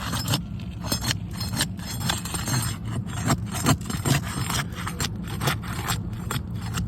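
A tool scraping and clicking against roof shingles as they are pried loose to get at the nails, in quick irregular strokes, over a steady low rumble.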